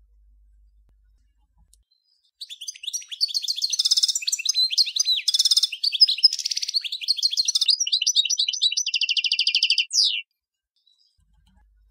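European goldfinch of the large 'major' race singing one long song phrase of rapid, varied twittering notes. It begins about two and a half seconds in and closes around ten seconds in with a fast trill and a single quick falling note.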